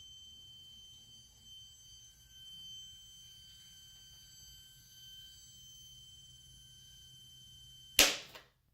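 Bumpboxx UpRock V1 boombox speaker giving off a steady high-pitched whine while all its volume knobs are off, a fault in the unit. About eight seconds in there is a single loud pop, and the whine stops after it.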